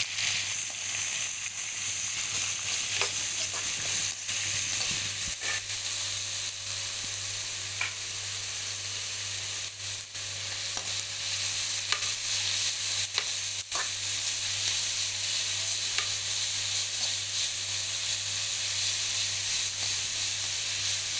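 Onion and curry leaves frying in hot oil with mustard seeds and cumin, a steady sizzle. The stirring spoon knocks and scrapes against the pan a few times.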